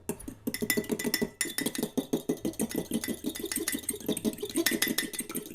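An egg being beaten in a cup, the utensil clinking rapidly and evenly against the cup's side, several strokes a second.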